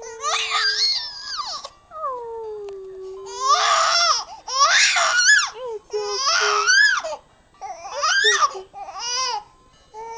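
Baby crying in a run of wailing cries that slide up and down in pitch, with a long low falling whimper about two seconds in. The cries are loudest through the middle, then grow shorter and stop near the end.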